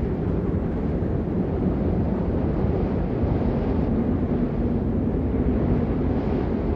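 Steady low rumbling noise with no distinct events, of the kind made by wind on a microphone or distant traffic.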